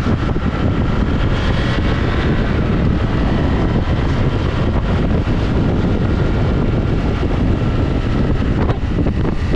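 Motorcycle running steadily on the move, heavily buffeted by wind on the microphone.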